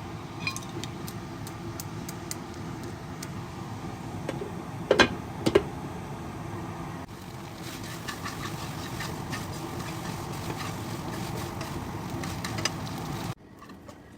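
One-pan pasta cooking on the stove: a steady low rumble with scattered small clicks, and two loud knocks of a utensil or pan about five seconds in. The sound drops off suddenly about a second before the end.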